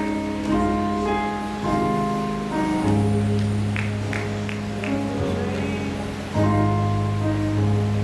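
Slow instrumental worship music: long-held bass notes under a gentle, sustained melody.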